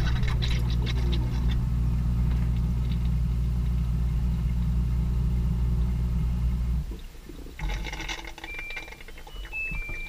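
Heard from inside the drum of a front-loading direct-drive washing machine as it runs down from its spin: a steady low hum, with a falling whine in the first second. The hum cuts off about seven seconds in. A few clicks and rattles follow, then the machine's electronic beeps start a short stepped tune near the end, typical of an end-of-cycle signal.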